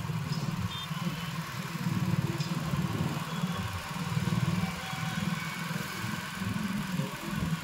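Motorcycle engine running at a steady road pace with a fast, even low pulsing, over the hiss of moving traffic.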